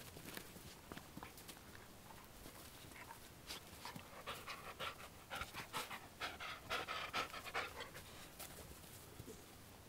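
Two dogs, a black dog and a young black-and-white puppy, play-fighting: panting and short scuffling mouth noises, with a cluster of louder short sounds between about four and eight seconds in.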